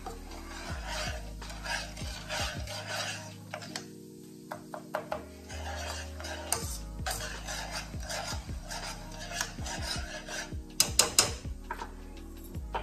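A spoon stirring flour into hot oil in a nonstick skillet to make a roux for gravy, scraping the pan in quick repeated strokes with a short pause a few seconds in. Background music of sustained low notes runs underneath, and a few sharp knocks come near the end.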